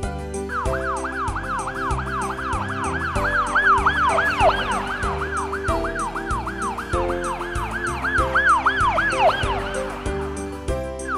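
A fast yelping siren sound effect, its pitch sweeping up and down about three times a second, over background music with a steady beat. The siren starts about half a second in and cuts off shortly before the end.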